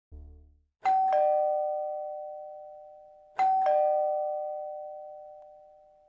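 A two-tone doorbell chime sounds its ding-dong twice, about two and a half seconds apart. Each time a higher note is followed by a lower one, and both ring on, fading slowly. A short low hum comes just before the first chime.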